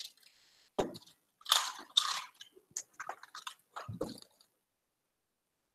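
Irregular close-up rustling and crackling noises with two dull thumps, about one second and four seconds in, the loudest rustle coming about two seconds in.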